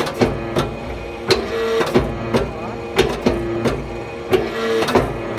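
Anyang hydraulic forging press at work: a steady hum with sharp knocks about twice a second, and a few brief whines in between.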